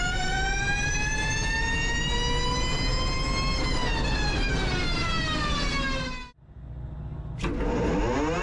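Electric rallycross car's motor whine heard onboard, its pitch climbing for about three and a half seconds as the car accelerates, then falling as it slows, over a steady low rumble of road and drivetrain noise. Past six seconds the sound drops out. After a click about a second later, the whine returns and rises again as the next car accelerates.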